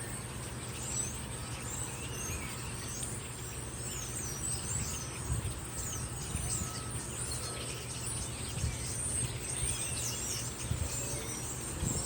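Outdoor ambience of small birds chirping with many quick high calls over a steady high insect drone and a low steady hum. No siren is sounding yet.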